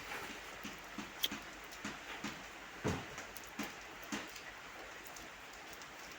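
Heavy rain falling steadily, with a few scattered knocks over the first four seconds, the loudest just under three seconds in.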